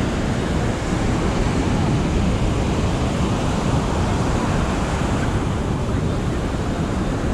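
Ocean surf washing onto a sandy beach, a steady rush of noise, with wind buffeting the microphone and faint voices in the background.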